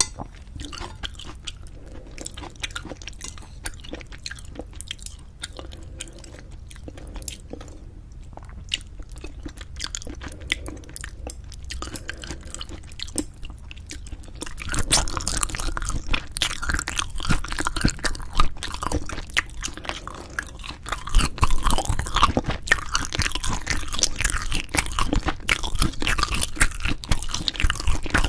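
Close-miked eating sounds of braised spicy chicken with cheese: wet chewing, bites and crunches. Quieter and sparser at first, becoming louder and busier about halfway through.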